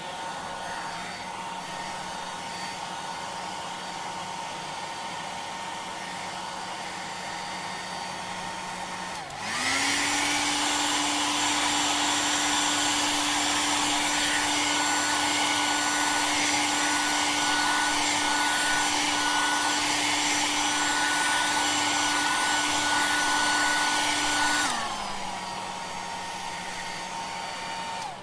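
Hair dryer blowing on its low setting, then switched up to high about a third of the way in, its motor whine gliding up in pitch and the blowing getting louder. Near the end it is switched back down to low and the whine drops again.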